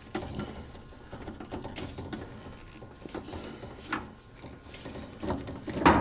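Handling noise as a rubber drain-hose adapter with metal hose clamps is worked onto a PVC pipe fitting: scattered light clicks and rubbing, with a sharper knock just before the end.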